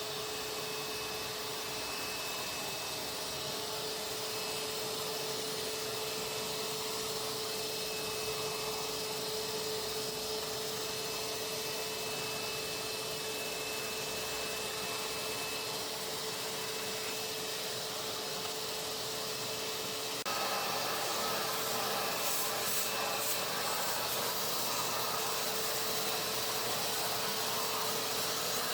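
Shop-Vac Micro 16L wet and dry vacuum running steadily, a motor whine over rushing air. About twenty seconds in, the sound gets a little louder and harsher.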